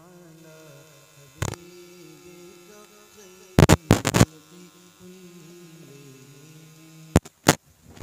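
A man's voice humming a slow, held melody with no words, typical of the hummed backing in a naat recital. Loud sharp pops cut through it about a second and a half in, in a quick cluster near the middle, and again near the end.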